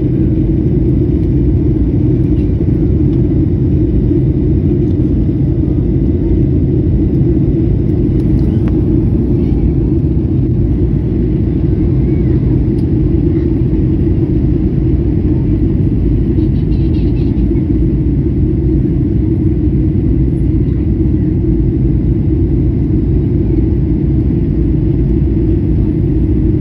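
Steady low rumble of airliner cabin noise, engine and airflow, unchanging throughout.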